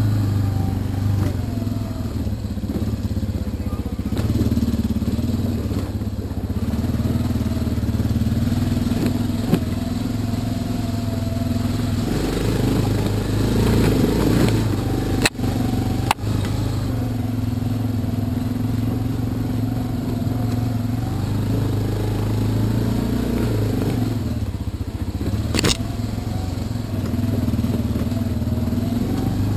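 ATV engine running as the quad is ridden along a dirt trail, the engine note rising and falling with the throttle twice, about halfway through and again near the end. The sound cuts out twice for an instant about halfway through, and a single sharp click comes near the end.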